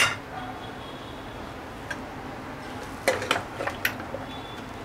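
A metal ladle clinking against metal cookware while masala is scooped: one sharp clink at the start, a faint tap about two seconds in, and a quick run of clinks about three seconds in.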